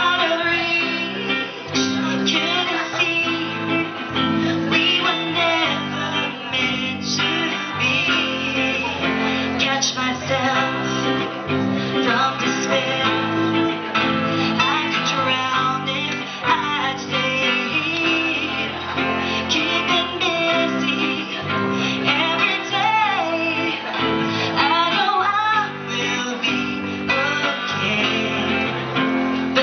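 Live band: an acoustic guitar strumming chords while women sing a song into microphones.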